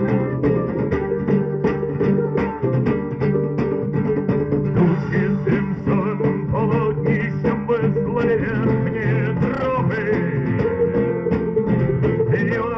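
Folk band playing live: an instrumental passage of guitar over a steady beat, with a wavering melody line coming in about halfway through.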